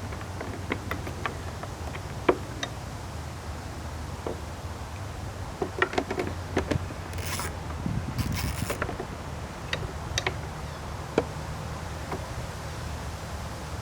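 Scattered metallic clicks and knocks of hand tools working bolts loose on a lawn mower, irregular and sparse, over a steady low hum. Two short hisses come about halfway through.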